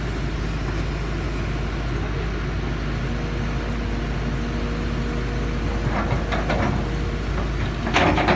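Kobelco SK200 hydraulic excavator running while it digs, its diesel engine giving a steady low rumble with a faint steady whine over it in the middle. Short bursts of clatter come about six seconds in and again near the end.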